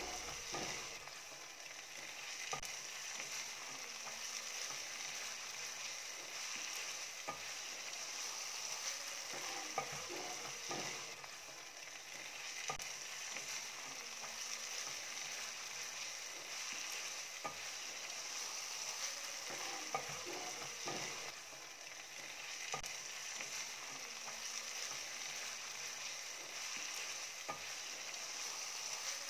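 Minced meat (qeema) sizzling steadily as it fries in a nonstick pan, with a wooden spoon stirring it and knocking against the pan every few seconds.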